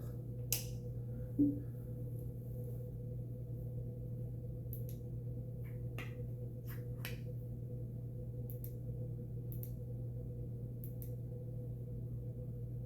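Irregular soft clicks of a flashlight's push-button switch being pressed repeatedly, with a louder tap about a second and a half in, over a steady low hum.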